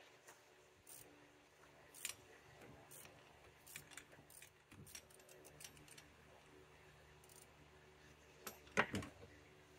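Faint, scattered metallic clicks and clinks of a ratchet and spark plug socket working a spark plug out of a 5.3L V8's cylinder head, with two louder clanks close together near the end.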